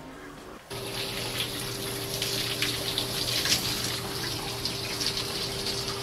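Shower running: water spraying steadily with a faint steady hum beneath, starting about a second in.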